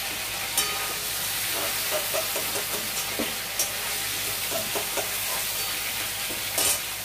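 Chicken pieces sizzling in hot oil in a steel kadai, with a metal spatula scraping the pan as the fried pieces are lifted out onto a steel plate. There are three sharp metal clinks, about a second in, in the middle and near the end.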